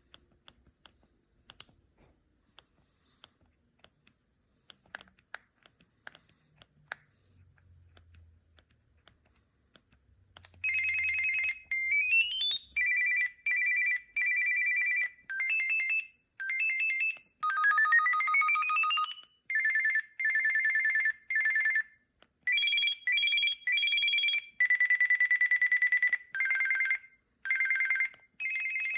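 Samsung A640 phone's speaker playing a preloaded ringtone, starting about ten seconds in: a pattern of high electronic beeps in quick pulses, broken twice by fast rising sweeps. Before it, faint clicks of the phone's keys being pressed.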